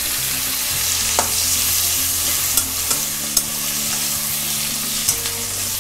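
Chopped tomatoes and onions sizzling in hot mustard oil in a metal kadhai, stirred with a metal spatula that scrapes and clicks against the pan a few times.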